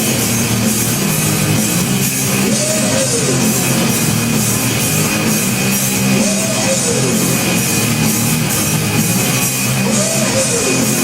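Rock music with a pounding drum kit and guitar. A swooping tone rises and falls three times over it, about every three and a half seconds.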